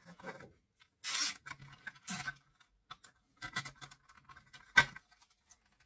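Short rubbing and scraping scuffs of hands working thin plastic tubing against a soap dispenser's plastic housing, with one sharp click about five seconds in.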